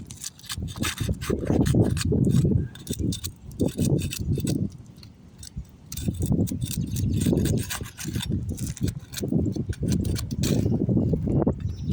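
Asphalt roof shingles being pried up and pulled off by hand: irregular clicks, scrapes and crackles, over low rumbling buffeting on the microphone.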